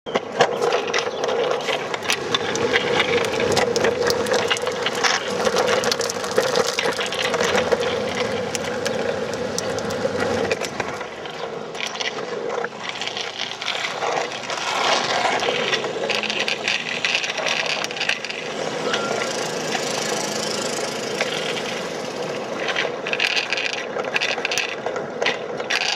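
Hard wheels rolling over rough asphalt: a continuous grinding rumble full of clicks and rattles, with a steady hum in roughly the first ten seconds.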